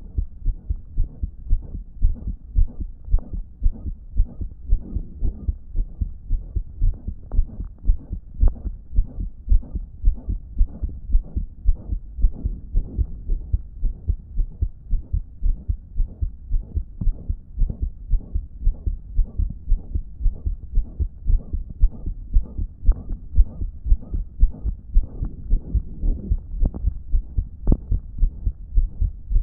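A damaged human heart beating in close-up with a regular thump, a loud blowing murmur rushing between the beats. The uploader takes this as a sign that the heart wasn't pumping effectively.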